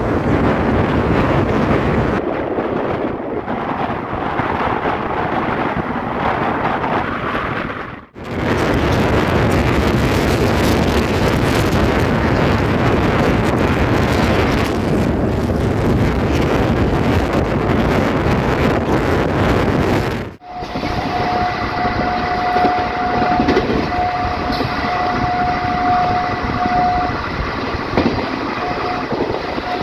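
Express train of ICF coaches running fast, heard from an open coach door: a steady loud rush of wheel, track and wind noise. In the middle stretch the rush of a train crossing on the next track fills the sound. In the last third a train horn sounds one long steady note for several seconds.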